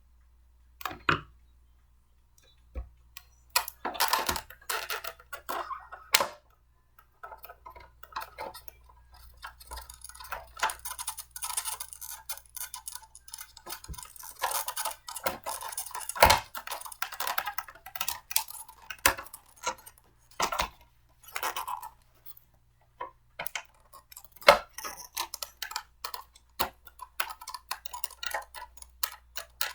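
Blender parts being handled and fitted together by hand: irregular clicks, clinks and short rattles of small pieces, with a few sharper knocks.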